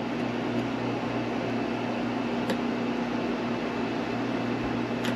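A steady low hum under an even hiss, like a fan or air-handling appliance running, with two faint light ticks, one about halfway through and one near the end.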